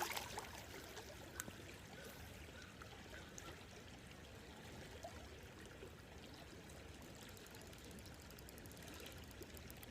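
Creek water running faintly and steadily, with one light click about a second and a half in.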